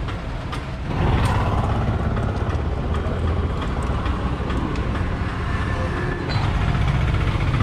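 Road traffic passing close by: engines and tyres making a steady rumble that grows louder about a second in and again near the end.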